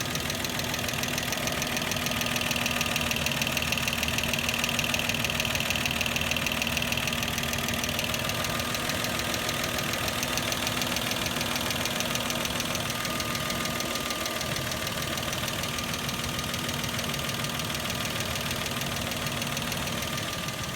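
Toyota 1G-FE Beams 2.0-litre inline-six engine running steadily with a rapid clacking from the end of the engine, a diesel-like clatter. Others take it for the VVT-i cam phaser, but the owner doubts that it comes from the phaser itself.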